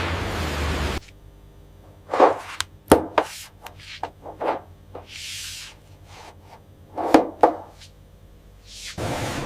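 Steady machine noise cuts out about a second in, leaving a quiet stretch of scattered knocks and clatters. Two loud pairs of knocks come about two seconds apart, and a short hiss falls between them. The steady noise returns near the end.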